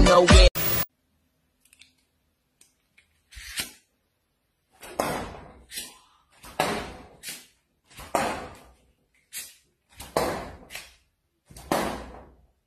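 Playing cards thrown by hand into a black board, one after another, each striking it with a short, sharp hit. About ten throws, starting a few seconds in, roughly one every 0.7 seconds.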